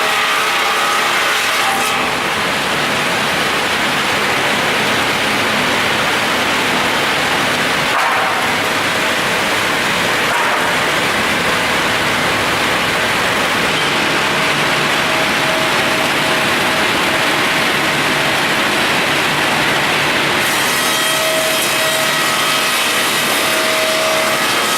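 SPB-8-2 pulpwood-processing machine sawing wood, a continuous loud cutting noise with steady machine tones underneath that grow clearer near the end.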